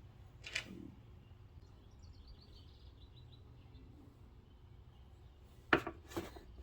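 A bird singing a short series of chirps stepping down in pitch, faint against a low steady hum. A short scrape about half a second in and two sharp knocks near the end, louder than the bird, come from hand work under the car.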